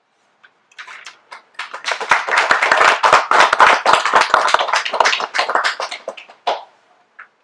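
Small audience clapping. The applause starts thinly about a second in, swells, and dies away near the end.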